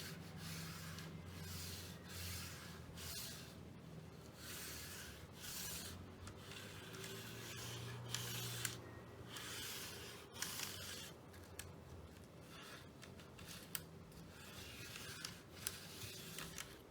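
Keyboard being cleaned: repeated scrubbing strokes, each under a second and irregularly spaced, with a few sharp clicks among them.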